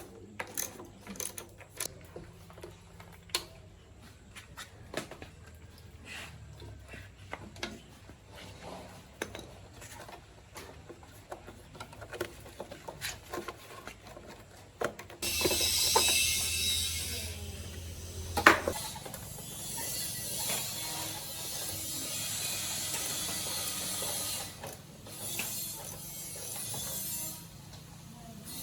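Hand tools working on motorbike parts: scattered irregular metal clicks and ratcheting. About halfway a steady hiss starts and runs on, with one sharp knock soon after it begins.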